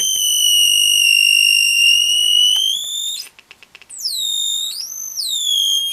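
High-pitched electronic tone from a homemade chirp-generator oscillator circuit running continuously on 12 V, its pitch shifting as a potentiometer is turned. It holds steady, then creeps up, breaks off for under a second with a few crackles, and comes back higher, rising and falling before settling back down.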